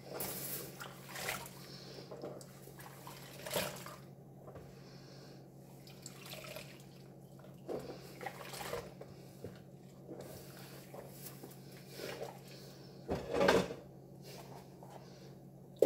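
Clear plastic nebuliser masks being washed by hand in a sink of soapy water: scattered splashes and the rub and knock of plastic, with a louder bout of splashing about thirteen seconds in.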